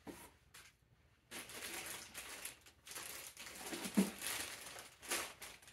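Plastic packaging crinkling as plastic-wrapped parts are pulled out of a cardboard box, with a knock about four seconds in.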